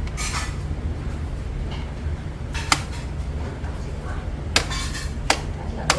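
Electric fan under repair: a steady low hum with four sharp clicks of its plastic parts being handled, one about two and a half seconds in and three in the last second and a half.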